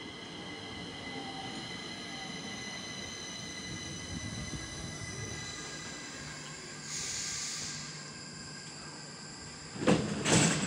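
C20 metro train pulling in alongside the platform and slowing to a stop. Wheels rumble on the rails under a steady high electric whine of several tones, and there is a hiss about seven seconds in. Near the end come sudden loud knocks as the train's doors begin to open.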